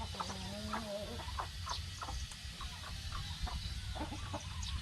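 A flock of backyard chickens clucking, with many short calls scattered throughout and one longer wavering call about a second in.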